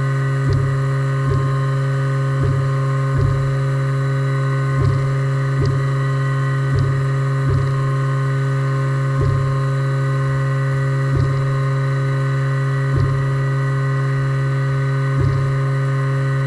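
Haas VF-2 CNC vertical mill running with its spindle at 8100 RPM: a steady hum with higher overtones, broken by about a dozen brief low thumps at uneven intervals.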